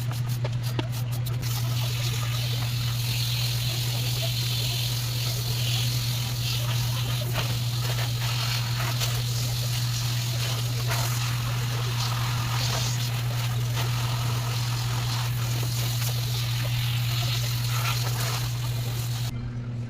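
A steady low machine hum under a rushing hiss with scattered clicks. The hiss cuts off abruptly near the end while the hum keeps going.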